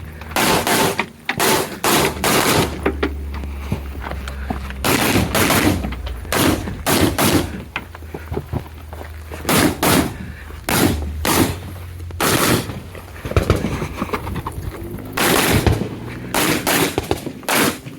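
Rifle shots fired in quick pairs and threes, with pauses of one to three seconds between the groups, as a shooter works through an IPSC rifle stage.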